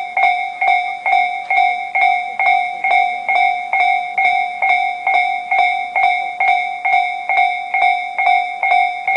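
Japanese railway level-crossing warning bell ringing steadily, an electronic two-tone ding repeating about twice a second, which signals that a train is approaching or passing.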